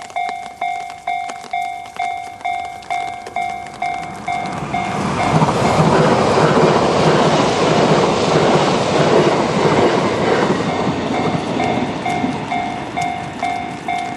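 Japanese level-crossing warning bell ringing in a steady beat of about two strikes a second while a train passes through the crossing. The train's noise swells in about four seconds in, is loudest for several seconds and drowns out the bell, then fades. The bell rings on after the train has gone.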